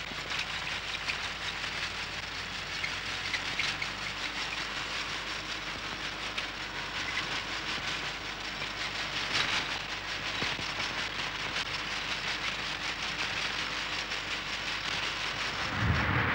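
Steady hiss with fine crackle and a faint low hum, the noise of an old soundtrack. Near the end, a loud low rumble of wind on the microphone starts.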